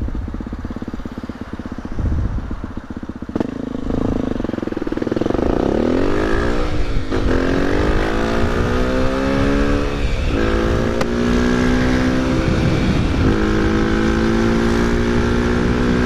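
Honda XR250 Tornado's single-cylinder four-stroke engine through a Belparts aftermarket exhaust, pulling away and shifting up through the gears: the pitch climbs, drops at a shift about seven and again about ten seconds in, then holds fairly steady near the end.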